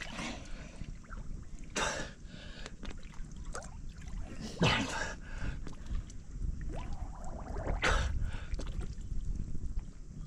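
Water sloshing and splashing, with three louder splashes about three seconds apart over a steady low rumble.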